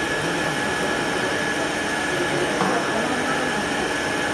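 Centre lathe running steadily: a constant machine noise with a thin, steady high whine.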